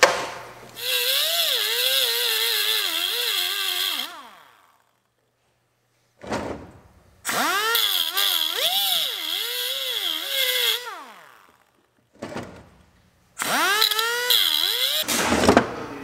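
Pneumatic grinder with a small abrasive disc grinding off the heads of the brass bolts that hold the ring gear to a 1926 Ford Model T flywheel. It runs in three spells of a few seconds each: a loud whine and hiss whose pitch dips and rises as the disc bites into the metal.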